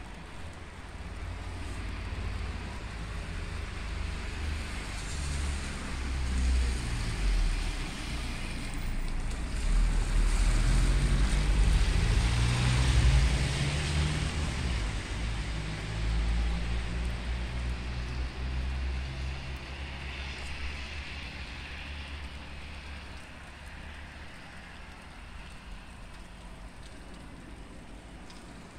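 A car driving along a wet street, its tyres hissing on the wet road as it swells to its loudest about halfway through and then fades away. A low, uneven rumble of wind on the microphone runs underneath.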